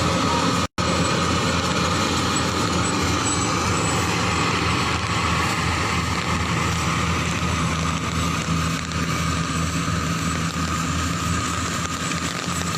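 An engine running steadily with a constant low hum and a noisy rush. The sound drops out completely for an instant, less than a second in.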